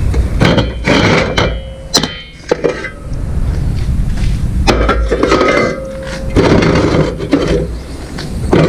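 Metal parts of a hydraulic cylinder clanking and scraping as they are handled, with a few sharp knocks and brief metallic ringing.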